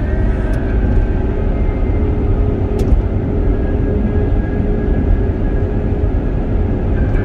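A vehicle driving along a snow-covered highway, giving a steady, loud low rumble of tyre and engine noise.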